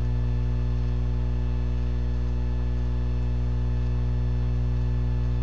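Steady electrical mains hum: a low buzz with a long stack of evenly spaced overtones, unchanging throughout, with no other sound standing out above it.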